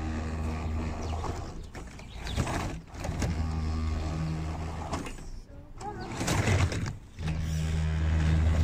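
RC scale Land Rover Defender crawler driving, with a steady low motor hum. The hum cuts out twice, about two seconds in and about five seconds in, and comes back each time after a short noisy burst.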